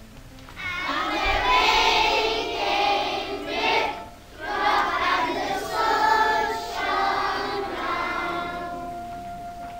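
A group of children singing together as a choir, starting about half a second in, with a brief break about four seconds in.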